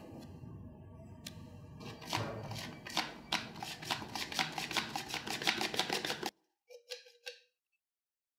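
Cake flour being sifted through a hand sieve into a glass bowl of batter: a rustling of flour with fast, even tapping of the sieve, about five taps a second, that stops abruptly about six seconds in.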